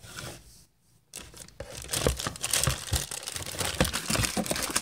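Plastic packaging bags crinkling and rustling as they are handled, a dense, busy crackle from about a second in.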